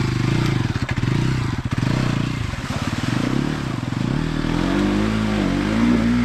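Motorcycle engine running under throttle as the bike is ridden through a flooded, muddy track. The revs rise and fall several times in the second half.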